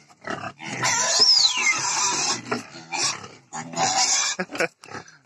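Pigs squealing and grunting in the pen in several noisy bursts, the longest about a second in with a squeal that falls in pitch, then shorter squeals and grunts.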